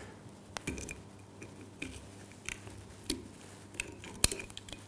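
A sommelier's knife cutting the foil capsule around the neck of a wine bottle: faint scratching and scraping with scattered small clicks, and a sharper click near the end.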